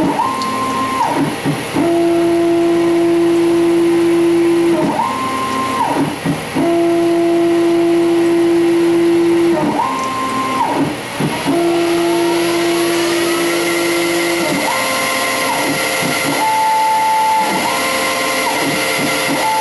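Stepper motors of a CNC-converted Grizzly G0602 lathe driving repeated threading passes. Each pass is a steady tone lasting about three seconds, then a quick glide up in pitch as the tool rapids back, repeating roughly every five seconds. About twelve seconds in, the spindle is sped up from 400 to about 1035 rpm with a rising whine, and the passes that follow sound higher, their feed kept in sync with the spindle's index pulse.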